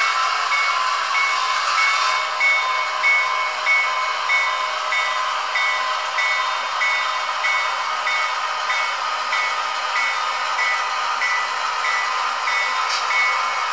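HO-scale model diesel locomotive's onboard sound playing through a small speaker: a steady engine hum with no deep bass, and the bell ringing evenly about twice a second as the engine moves slowly through the yard.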